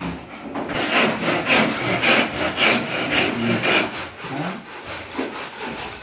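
Wood being sawn by hand, in rhythmic strokes about two a second, fading away after about four seconds.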